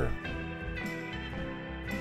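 Background music with sustained notes and a few soft note onsets.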